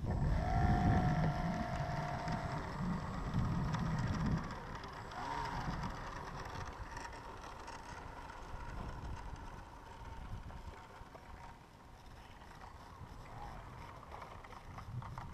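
Ken Willard Drake II model airplane's motor whining as the plane taxis away across the tarmac, with one rise and fall in pitch about five seconds in, fading as it gets farther off. Wind rumble on the microphone during the first few seconds.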